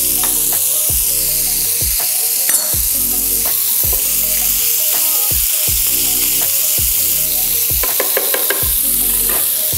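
Ground beef sizzling as it fries in a pan, stirred with a wooden spatula, with a run of sharp clicks near the end. Background music with a steady beat plays underneath.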